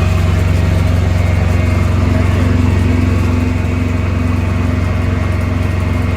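A large engine idling steadily with a deep, even hum.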